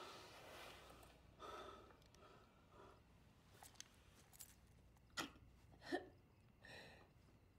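Near silence: quiet room tone with a few faint short sounds, the two clearest about five and six seconds in.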